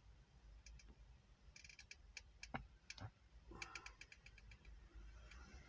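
Near silence in a stationary car's cabin, with a low rumble, faint scattered clicks and two brief falling squeaks about halfway through.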